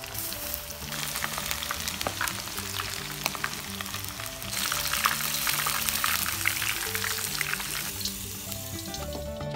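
Battered prawns deep-frying in hot oil: a dense crackling sizzle that grows louder about halfway through and cuts off near the end. Background music plays under it.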